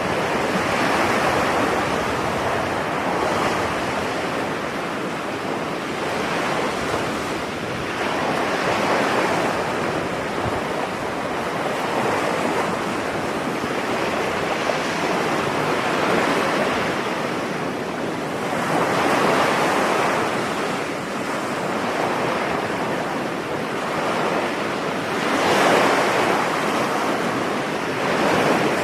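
Ocean waves breaking on a beach: a continuous wash of surf that swells and falls as each wave comes in, about every three to six seconds, with one of the louder breaks near the end.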